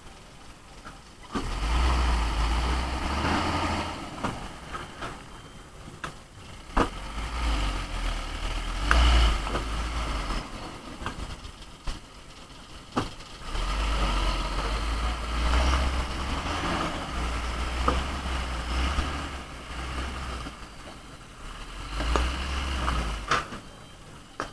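Hino Ranger 500 dump truck's diesel engine running, swelling to a deep rumble in stretches of a few seconds and dropping back between them, with a few sharp knocks.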